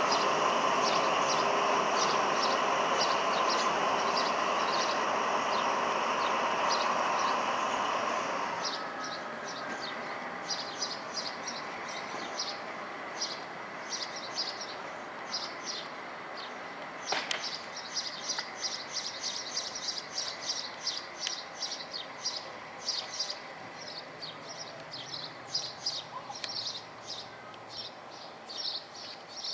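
BB 67400 diesel locomotive and its train running, with a steady noise for the first eight seconds or so that then drops away sharply. Small birds chirp rapidly throughout and become the main sound once the train noise falls.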